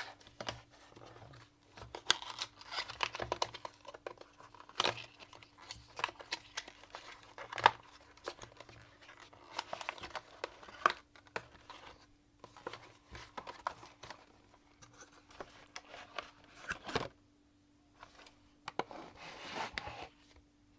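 Small cardboard retail box being opened and its packaging handled by hand: irregular rustling, tearing and crinkling with frequent sharp clicks and taps.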